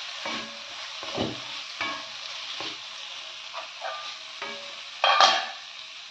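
Diced vegetables, paneer and soya chunks sizzling in oil in a pan while a wooden spatula stirs them, with a run of short scraping strokes. The loudest scrape comes about five seconds in.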